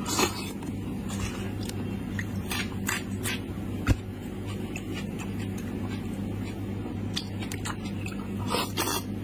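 A person biting and chewing braised sheep's-head meat, with wet smacks and short clicks of the mouth and fingers tearing meat. A steady low hum runs underneath, and a single sharp knock comes about four seconds in.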